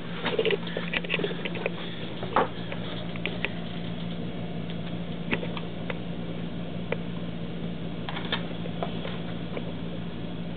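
Steady low hum with irregular light clicks and taps over it, as a handheld camera is moved about.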